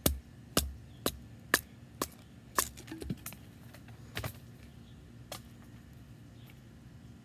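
A stick of wood being split with a bushcraft knife: six sharp wooden knocks about two a second, then a brief clatter and two fainter knocks.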